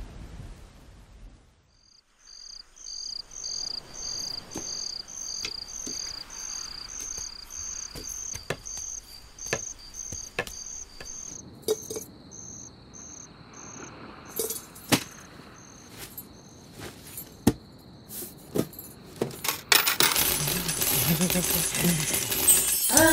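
Crickets chirping at night in evenly spaced chirps about twice a second, settling into a steady trill about halfway through, with scattered sharp clicks and clinks. Near the end a loud, dense rattling starts.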